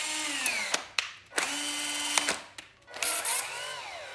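Panasonic 21.6 V cordless hammer drill motor run in three short trigger pulls, each a steady whine that falls in pitch as the chuck coasts down, with a click as each pull starts.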